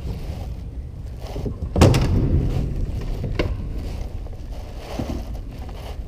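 A kayak paddle knocking against the plastic hull of a Lifetime Tamarack Angler kayak: one sharp knock about two seconds in and a few lighter clicks, over a low steady rumble.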